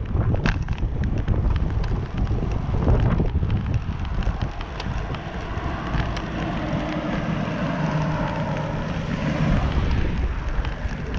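Wind buffeting the microphone on a moving bicycle, with a low rumble from riding over a concrete path. A faint steady hum joins in during the second half.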